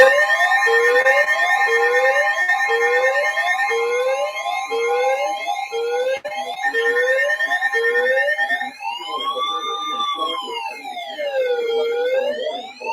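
Electronic siren sounding a series of short rising whoops, about one a second, over a steady tone. About nine seconds in it changes to a slow wail that rises and falls every few seconds.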